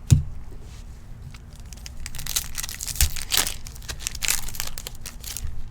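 A trading card pack's wrapper being torn open and crinkled by hand, with a stretch of crackling from about two seconds in, after a soft thump right at the start.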